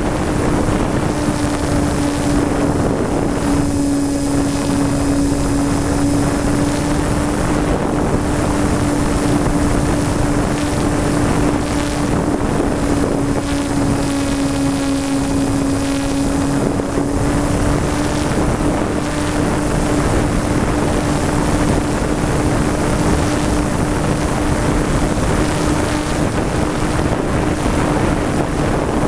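Onboard sound of a SkyMule RC model plane in flight: its electric motor and propeller give a steady hum that sags slightly in pitch a couple of times as the throttle changes, over heavy wind rush on the camera microphone.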